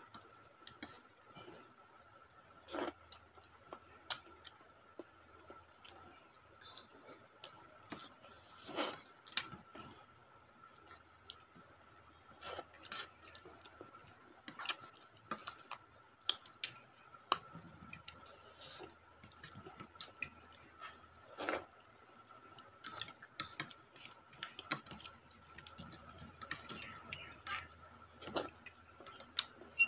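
Forks clicking and scraping against a ceramic plate at irregular moments, with chewing as Maggi noodles are eaten, over a steady faint high hum.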